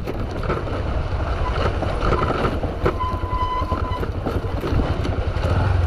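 Motorcycle riding over a rough road, heard through a helmet-mounted GoPro: steady wind rumble on the microphone and the engine running, with scattered knocks.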